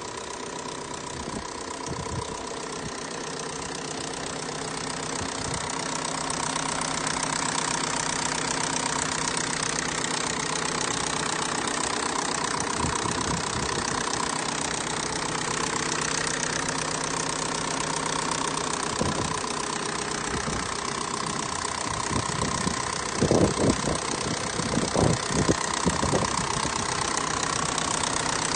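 Big-turbo FSI engine idling steadily with a steady hum, carrying an odd noise that the owner cannot yet identify and that has been there since the rebuild. A cluster of louder short knocks comes about three-quarters of the way through.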